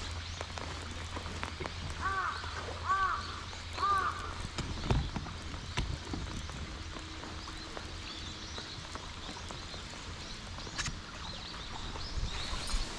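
A crow cawing three times, about a second apart, over a steady low hum and light rain on the water.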